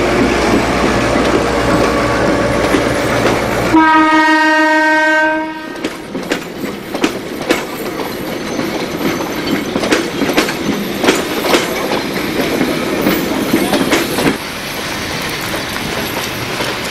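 A passenger train passing slowly: a low engine rumble, then about four seconds in a single steady locomotive horn blast lasting about two seconds, followed by the carriages' wheels clicking irregularly over the rail joints.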